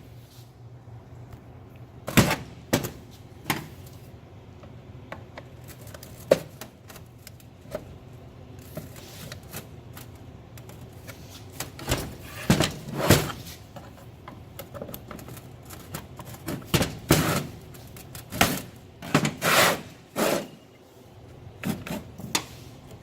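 Irregular clicks, knocks and clatter of hand tools and parts being handled while a truck DEF pump is taken apart, with the busiest clatter about twelve seconds in and again from about seventeen to twenty-one seconds.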